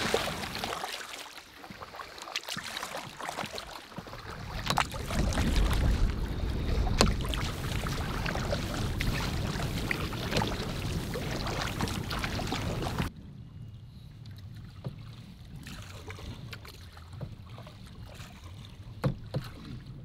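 A canoe being paddled across choppy, wind-blown water: paddle strokes splashing, occasional sharp knocks of the paddle against the hull, and wind rumbling on the microphone. About thirteen seconds in it cuts abruptly to quieter paddling on calmer water.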